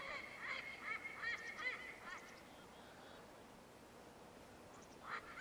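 Faint series of short, high, arching animal calls, several a second, for about two seconds. More calls follow near the end.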